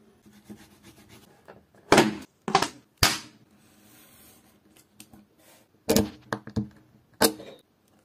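Leatherworking hand tools knocking and clacking on a workbench: three sharp knocks about two to three seconds in, then four more from about six seconds in.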